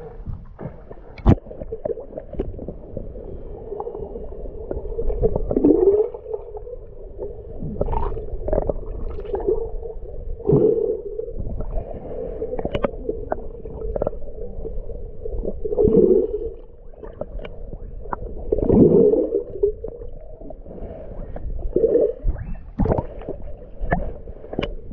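Muffled water sounds from a camera held at the waterline and partly under it: water sloshing and gurgling over the microphone, with a steady low hum, a few deeper gurgles that drop in pitch, and scattered sharp clicks.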